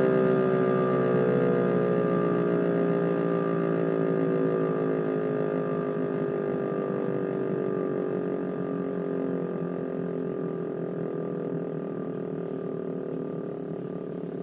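DS 977 electromechanical siren running down after its test alarm: a multi-tone wail that slowly falls in pitch and fades steadily as the rotor spins down.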